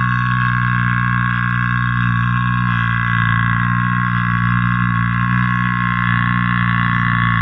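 One steady held tone, a deep hum under a bright buzzy upper part, that does not change in pitch or loudness: an inserted drone-like sound effect or held electronic note.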